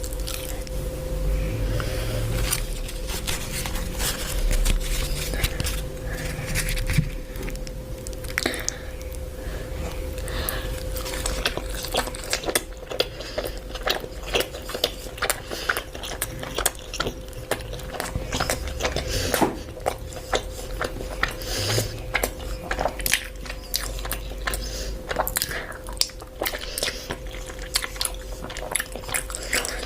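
Close-miked eating in mukbang style: biting and chewing, with many short crisp crunches and wet mouth clicks, coming thicker in the second half.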